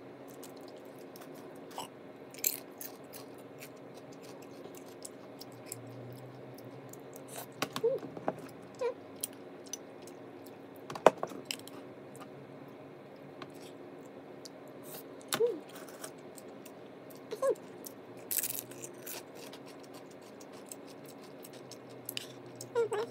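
Close-miked chewing of crisp curly lettuce: scattered crunches and wet mouth clicks, one sharp crunch near the middle, over a steady low hum.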